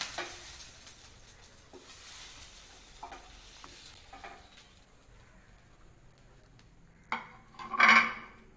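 Faint sizzling in a hot frying pan as a wooden spatula scrapes under steamed leaf-wrapped parcels and lifts them out, with a few light knocks. Near the end comes a sharp knock, then a short, louder clatter.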